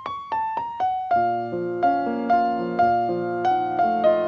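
Background piano music: a few quick single notes, then gentle sustained chords in a steady rhythm from about a second in.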